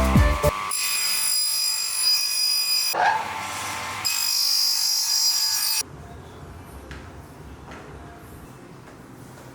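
A power tool's motor running with a steady high-pitched whine for about five seconds, its sound changing briefly partway through, then cutting off suddenly, leaving a quiet room with a few faint taps.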